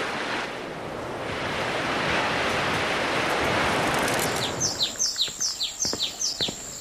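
Sea waves washing, swelling over the first few seconds, then birds chirping in a quick run of short falling chirps, several a second, over a thin steady high tone.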